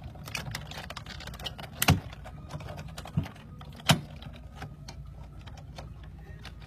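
Sizzix Big Shot die-cutting machine being hand-cranked, the cutting plates and die with paper passing through its rollers to cut out a paper flower: a run of small clicks with two loud knocks about two seconds apart.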